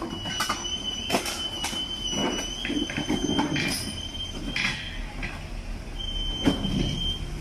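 The recovery of a wrecked car from a ravine, on a phone's microphone: a steady high-pitched squeal with many sharp knocks and clanks over a low rumble, the squeal breaking off briefly past the middle and coming back.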